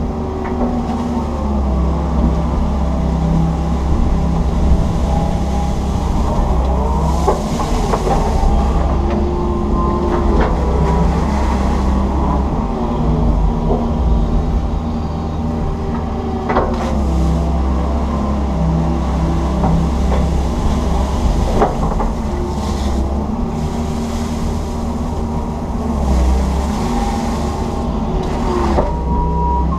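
Komatsu PC160 hydraulic excavator running steadily under digging work, heard from inside the cab: a low engine hum with steady tones that step up and down in pitch as the machine works. A few sharp clunks sound along the way.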